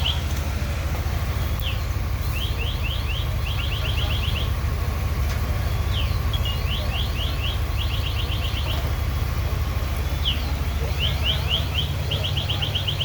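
Steady low rumble of fire apparatus engines running at the fireground. Over it, a high chirping phrase repeats about every four seconds: a few slurred chirps, then a quick even trill.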